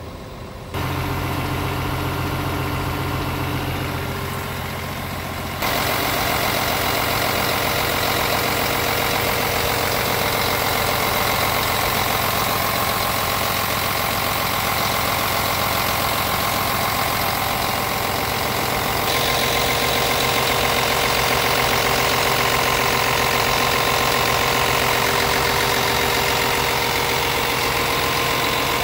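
Scania R 450 truck's 13-litre inline-six diesel idling steadily. It gets louder about six seconds in, once it is heard up close at the open engine bay.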